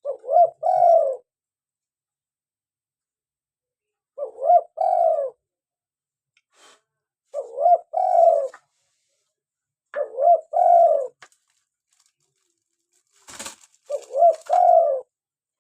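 Spotted dove (tekukur) cooing: five three-note phrases, each about a second long, repeated every three to four seconds. A brief sharp rustle or knock comes just before the last phrase.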